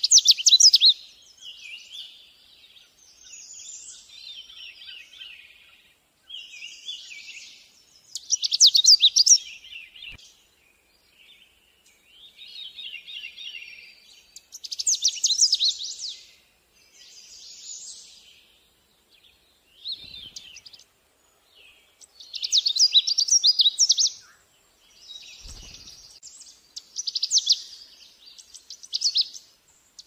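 Canada warbler singing: loud bursts of rapid, jumbled, chattering song, each a second or two long and repeated every several seconds, with fainter song between them.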